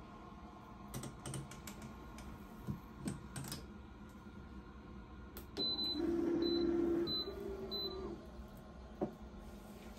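Paper and fabric rustling and clicking as a shirt is laid on a heat press. Then the automatic heat press beeps four short times while its motor hums for about two seconds, lowering the platen to start the press.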